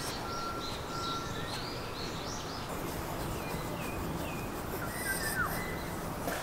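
Small birds chirping over a steady outdoor hiss: a quick run of short falling chirps, a thin held whistle near the start, and a single falling whistle about five seconds in.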